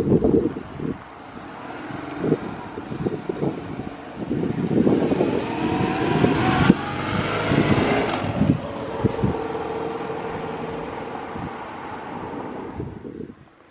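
BMW GS motorcycle running on the road with wind buffeting on the microphone; the engine note rises about halfway through. The sound cuts off suddenly near the end.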